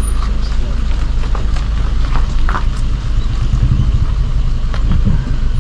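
Suzuki car's engine and tyres heard from inside the cabin as a steady low rumble while it rolls slowly over a wet gravel drive, with scattered light ticks.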